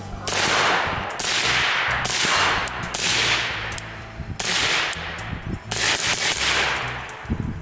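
Suppressed AR-15-style rifle in 5.56 firing five single shots at uneven intervals, each shot trailing off in a long fading echo.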